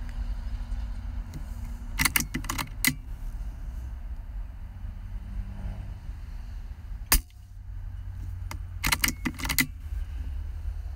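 Air rifle shooting at iguanas. A quick run of metallic clicks about two seconds in as the action is cycled to chamber the next pellet, then one sharp shot about seven seconds in, then another run of clicks as it is cycled again. A steady low rumble lies underneath.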